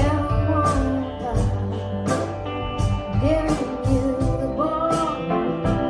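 Music: a song with a singing voice over guitar and drums, with a steady beat.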